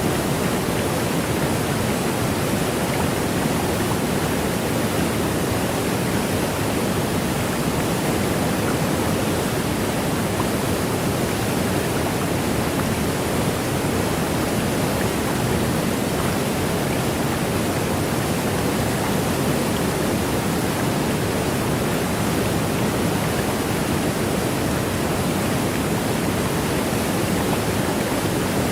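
Steady roar of Niagara Falls' Bridal Veil Falls crashing down at close range, a loud, unbroken rush of falling water.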